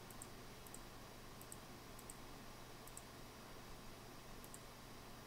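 Faint computer mouse clicks, each a quick double tick of press and release, about half a dozen at irregular intervals, over a low steady hum.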